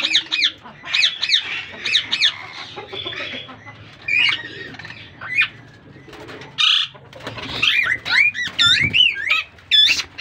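A flock of aviary parakeets, plum-headed parakeets among them, giving many short, high, sweeping calls that overlap one another. There is a brief flutter of wings a little past the middle.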